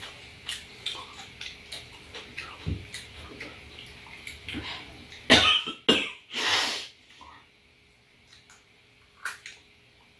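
Wet chewing and lip-smacking of ripe apricots being eaten, then a woman coughs a short run of times into her hand about five to seven seconds in, the loudest sound here.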